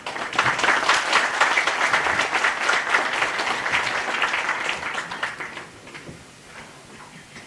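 Audience applauding in a hall, the clapping dying away about five and a half seconds in.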